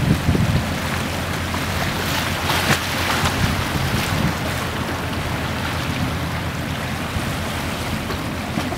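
Wind on the microphone and the wash of the sea, over the steady low drone of an RNLI all-weather lifeboat's diesel engines as it motors away.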